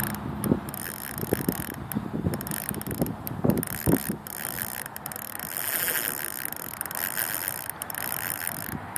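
Fishing reel being cranked, a fast, even ratcheting click from its gears, with a few light knocks from handling the rod.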